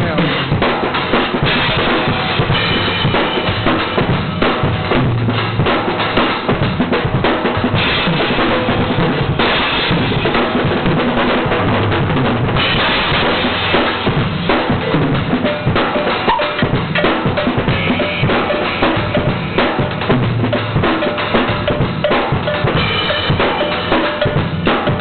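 Acoustic drum kit solo: fast, dense playing on bass drum, snare, toms and cymbals without a break, with stretches of sustained cymbal wash.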